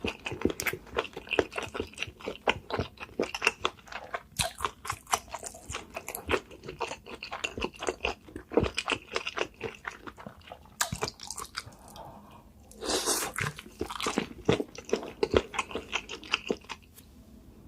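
Close-miked eating of spicy seafood: rapid, wet crunching and chewing with many quick bites, and one longer rush of noise about 13 seconds in.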